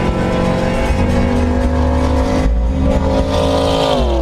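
Engine and road noise inside the cab of a pickup truck cruising on a highway.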